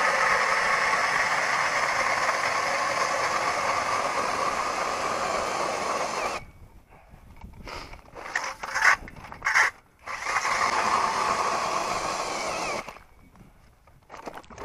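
Hand ice auger boring a hole through lake ice, a steady grinding scrape. It stops about six seconds in, followed by a few short knocks and scrapes, then the grinding resumes for a couple of seconds and stops near the end.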